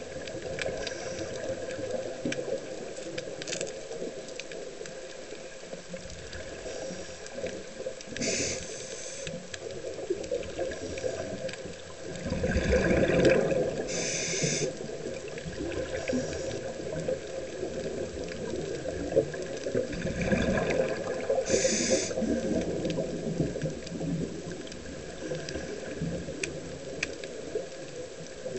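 Scuba diver breathing through a regulator underwater: short hisses of air drawn in through the regulator and longer rushes of exhaled bubbles, a few breaths several seconds apart.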